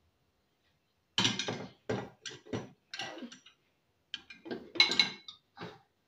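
Metal pots and pans clattering against the dishwasher's wire rack as they are lifted out and set back in, in two runs of knocks and rattles starting about a second in.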